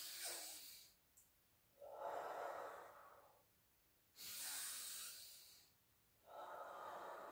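A woman taking two slow, deep breaths, faint and unvoiced. Each is a long, hissy inhale through the nose followed by a long exhale blown out through the lips, with short pauses between.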